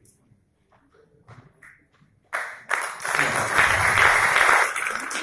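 Audience applause that breaks out suddenly about two seconds in and swells into loud, dense clapping from a full hall.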